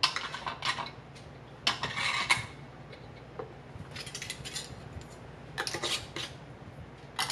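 Metal canning lids clinking onto glass jar rims and screw bands being fitted and turned on, in short clusters of small metallic clinks and scrapes every second or two.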